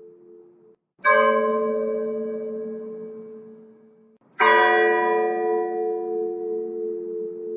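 Church bell tolling slowly as a funeral toll. Two strokes come about three and a half seconds apart, each ringing out and slowly dying away.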